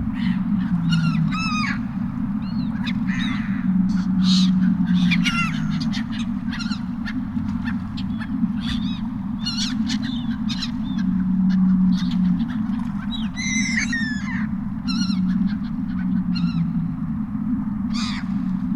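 A flock of seagulls calling over and over, short harsh squawks and cries overlapping, above a steady low hum.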